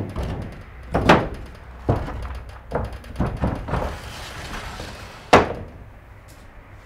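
Wooden shoji sliding panels being set into their track and slid along it: several knocks of the wooden frames, a brief sliding rustle, then a loud knock about five seconds in as a panel shuts against the frame.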